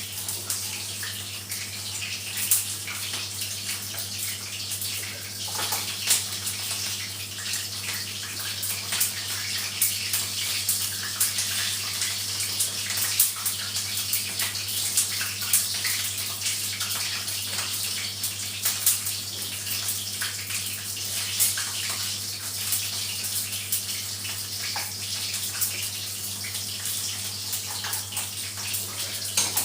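Water running steadily from a tap, a continuous splashing hiss with scattered small clicks, over a steady low hum.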